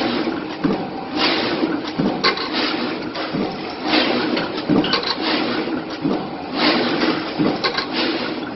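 Corrugated cardboard box-making machine running, with a steady hum and repeated bursts of hissing clatter every second or two as it cycles.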